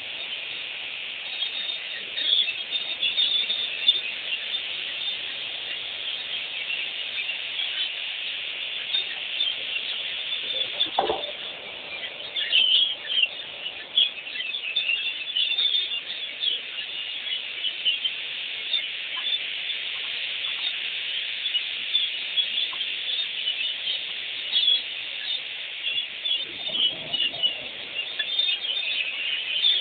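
Many birds chirping and calling in a dense, continuous chorus, with one short thud about eleven seconds in.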